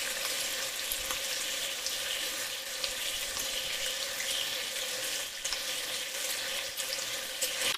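Bacon lardons sautéing in olive oil in a frying pan: a steady sizzling hiss with scattered small pops and crackles.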